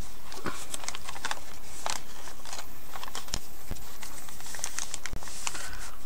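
Paper rustling with scattered light clicks and taps as hands work the pages and pockets of a handmade paper junk journal, tugging at a card that is stuck in a pocket, over a steady low hum.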